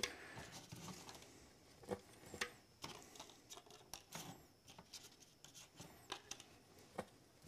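Faint, scattered light clicks and taps of hands working plastic chocolate molds and tools on a work surface.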